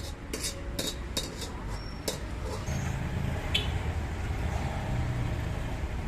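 Light clinks of cutlery against a plate, about six in the first two seconds and one more a little past the middle, over a steady low rumble of traffic.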